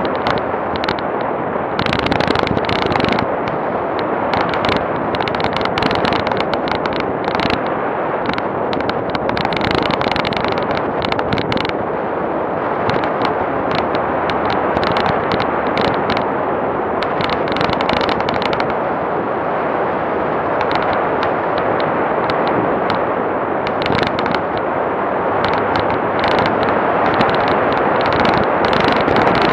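Off-road vehicle driving over a rutted dirt road: a steady rumble of running gear and road noise, with rapid clatter and knocks throughout as the body and the bonnet-mounted camera bounce over the bumps.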